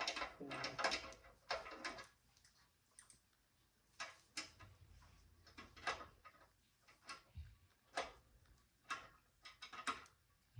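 Irregular sharp metal clicks and knocks of a wrench working a bolt while tightening a part on a bicycle: a quick cluster in the first two seconds, then single clicks about once a second.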